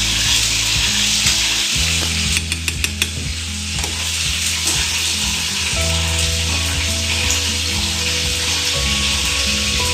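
Orange sauce boiling and sizzling hard in a saucepan while it is stirred, with a few quick clicks of the spoon against the pan about two and a half seconds in.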